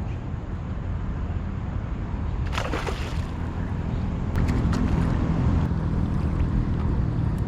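Wind rumbling on the microphone over water sloshing around a kayak, with a short rush of noise about three seconds in.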